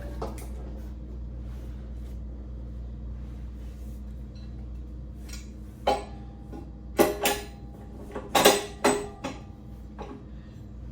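Metal objects knocked and set down, a handful of sharp clanks with a short ring after each, loudest about two-thirds of the way in, over a steady low hum.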